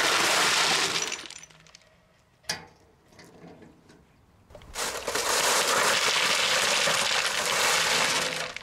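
Cobbles tipped out of a wheelbarrow, pouring and clattering onto the pond edge: one load finishing about a second in, then a second, longer pour from about five seconds in until near the end.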